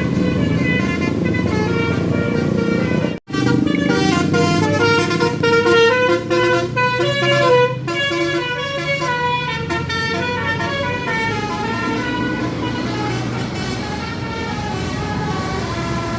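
Tour bus's Basuri telolet multi-tone air horn playing a quick tune, its notes stepping up and down, over the bus's engine running. The sound breaks off for an instant about three seconds in.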